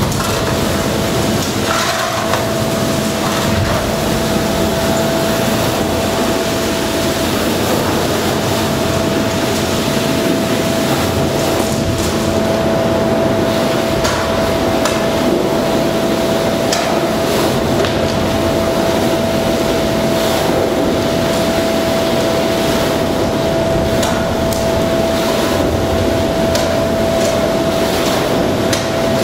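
Sewer vacuum truck's suction running steadily with a constant whine, while sludge and debris in the sewer are raked and shovelled with repeated knocks and scrapes.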